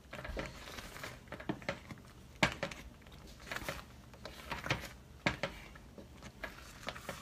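Wooden spatula stirring thick, simmering ube halaya in a stainless steel saucepan, with irregular scrapes and soft knocks against the pan about once a second.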